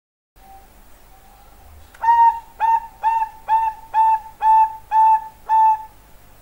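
Zebra dove (perkutut, Bangkok contest strain) singing: a faint opening note, then a run of eight short, clear coos at about two a second, each swooping quickly up into a steady note.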